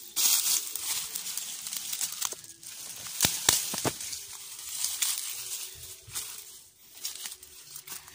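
Leaves and dry brush rustling in bursts as someone pushes through dense undergrowth, with a few sharp twig snaps around three to four seconds in.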